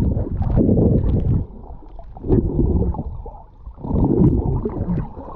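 Wind buffeting the microphone in uneven gusts, dropping away briefly twice, with a few light knocks or splashes.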